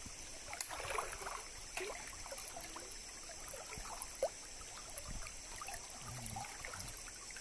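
Flood-swollen stream running, with scattered small splashes and sloshes of water around people wading waist-deep in it.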